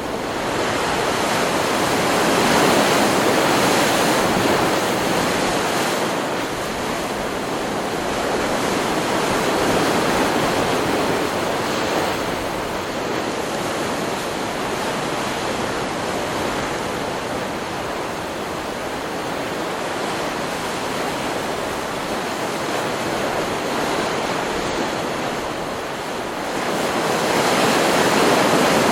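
Ocean surf: waves breaking and washing in as a continuous rushing noise that swells and ebbs, with louder surges near the start, around the middle and again near the end.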